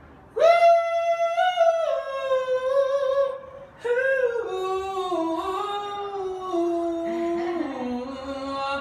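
A single voice sings long wordless held notes, a cappella. A first phrase of about three seconds holds high notes and falls slightly; after a short breath a longer phrase steps lower and lower in pitch.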